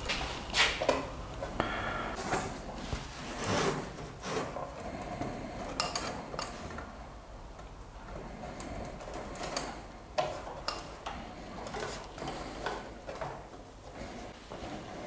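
Irregular light clicks, clinks and scrapes of copper wire stitches being threaded through the pre-drilled holes of thin plywood kayak panels, with occasional soft knocks of the wood.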